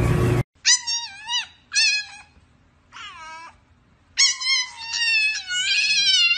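French bulldog puppy howling: three short, high-pitched cries, then one long howl from about four seconds in that slowly falls in pitch.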